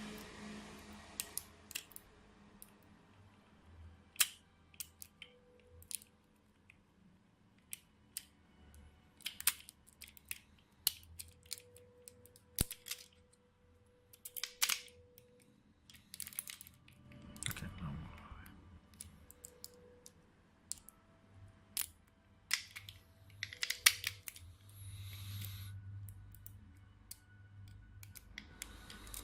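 ABUS Element 290 disc lock being picked open again and again: scattered sharp metallic clicks and snaps of the pick in the keyway and the lock's bolt opening and closing, some much louder than the rest, with no steady rhythm.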